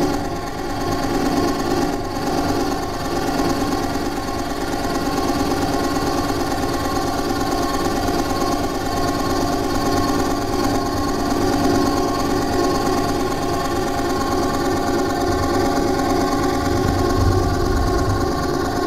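Accordion reeds holding a dense, sustained cluster chord, with a fast, even rattling flutter running through the tones. A low rumble swells in near the end.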